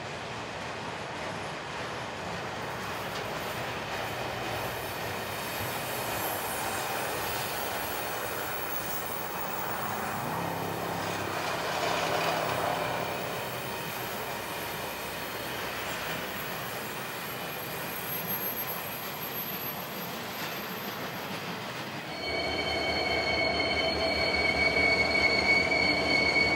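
Heavy freight rolling slowly past: the many wheels of a Schnabel car train make a steady rumble and rattle on the rails, swelling briefly about halfway through. Near the end, steady high-pitched squealing tones set in, louder than the rumble.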